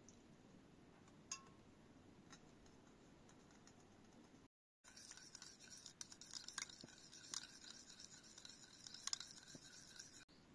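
Metal spoon stirring a milky liquid in a small plastic bowl, scraping and ticking against the bowl's sides and bottom in a continuous run for the second half. Before it, near silence with a single faint click.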